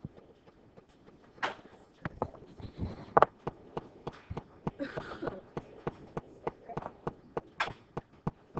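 Scattered knocks, taps and short rustles of people moving about and handling things in a classroom.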